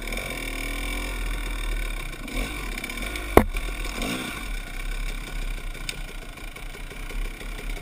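Dirt bike engine running at low trail speed, with short revs. A single sharp knock about three and a half seconds in.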